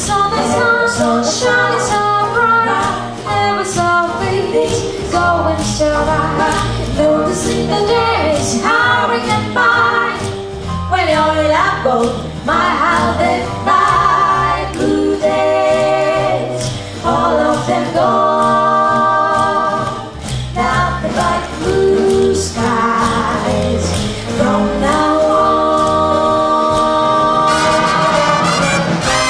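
Big band swing music with a group of women singing together in harmony over the band, the sung notes held and moving in chords.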